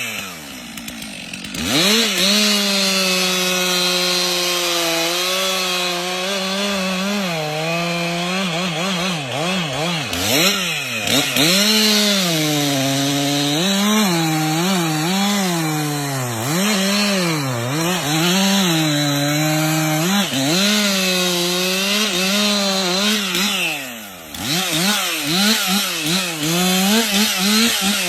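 Chainsaw engine running and cutting wood, its pitch rising and falling over and over as the saw is throttled and loaded in the cut. It drops off briefly about a second in and again about 24 seconds in, then picks back up.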